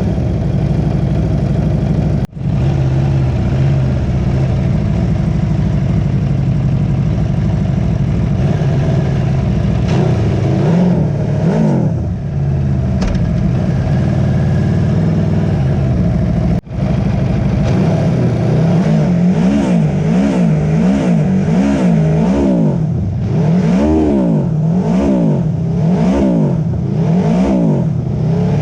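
Aprilia Tuono V4 Factory's V4 engine through an Akrapovic slip-on exhaust, still running with its exhaust valve and catalytic converter. It runs steadily at first, then is revved up and down over and over, about once a second, through the second half. The sound briefly drops out twice.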